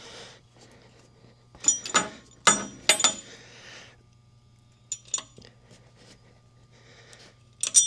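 Sharp metal clinks and knocks in a few clusters, some ringing briefly, as steel suspension parts strike each other: the compressed shock absorber's bottom mounting bolts being worked into the holes of the lower wishbone.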